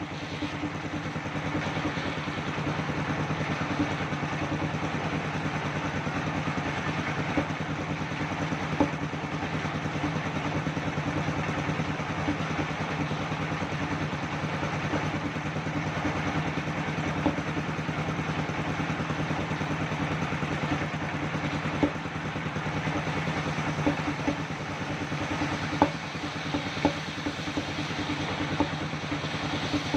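Engine-driven circular sawmill machine running steadily: a constant engine hum under the noisy whir of the spinning saw, with a few scattered small clicks.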